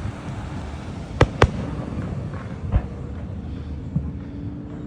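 Aerial fireworks bursting: two loud bangs in quick succession about a second in, then a few fainter pops, over a constant low rumble.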